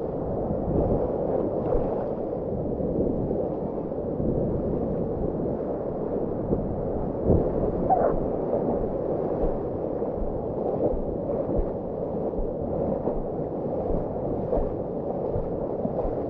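Broken ocean surf rushing and churning around a longboard, dull and muffled on a waterproof action-camera microphone, with a few sharper splashes.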